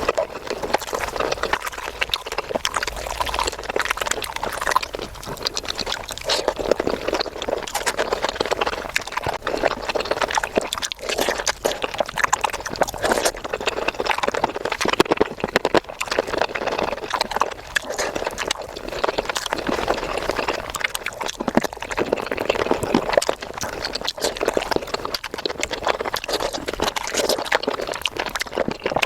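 Close-up eating sounds: wet chewing and lip-smacking of chicken curry, sped up to double speed, a dense unbroken run of rapid wet clicks and smacks.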